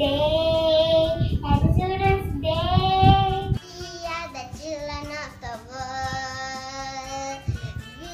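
Young girls singing. One child's loud singing breaks off abruptly about three and a half seconds in, and a second, softer child's voice takes over with long held notes.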